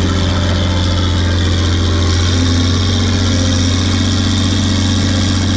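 Fiat FL10C bulldozer's diesel engine running steadily under load as it works, a loud low drone with no sharp knocks.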